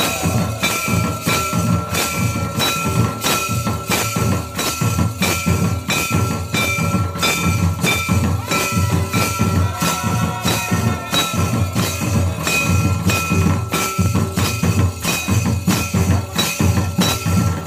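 Santali ritual drumming: a hand-played tumdak' barrel drum beats a fast, steady rhythm, with struck metal ringing over the drum strokes.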